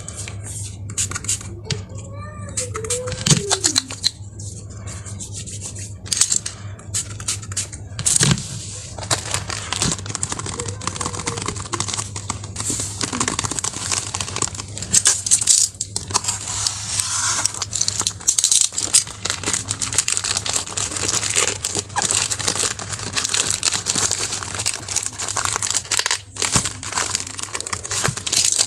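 Packaging being opened by hand: irregular crinkling, rustling and tearing with scattered clicks throughout.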